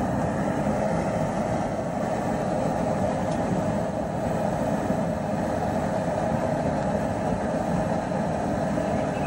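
Propane burner under a large stockpot of water running with a steady roar, heating the water toward a boil.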